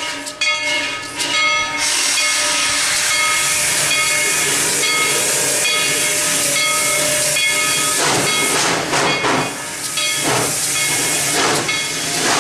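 Baldwin 2-8-2 steam locomotive with a loud, steady steam hiss carrying thin steady tones. About eight seconds in, exhaust chuffs begin at roughly two a second as it starts to pull, with steam blowing from the open cylinder cocks.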